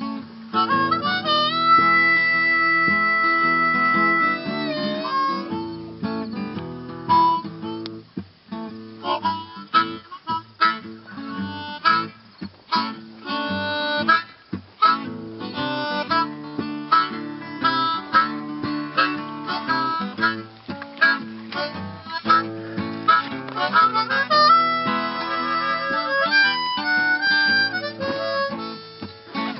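Acoustic guitar and harmonica playing a tune together, the guitar picked and strummed under the harmonica's melody, with a long held harmonica note about two seconds in.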